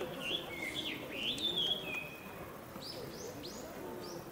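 Wild birds calling: whistled notes that slide in pitch for the first couple of seconds, then a quick run of about five short, falling chirps.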